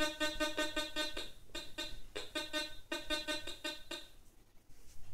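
Teknetics T2 metal detector giving its target tone as a very small, part-silver coin is swept past the search coil in an air test. The tone comes as rapid repeated beeps, about five a second, in several runs with short gaps, and stops about four seconds in.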